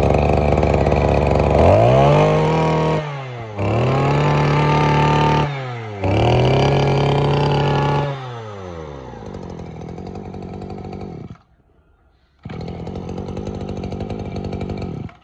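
Maruyama 23cc brush cutter's small two-stroke engine running, revved up three times, each rev held for about a second and a half before it drops back. It then idles, cuts out for about a second, and runs again steadily.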